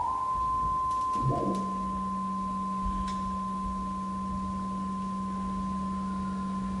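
Electronic sine tones. A high tone glides up at the very start and then holds steady. About a second and a half in, a low steady tone enters beneath it, and the two sustain together.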